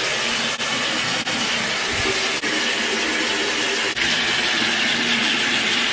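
Bathroom sink tap running steadily, water pouring into the basin as a constant hiss, broken by a few brief dips.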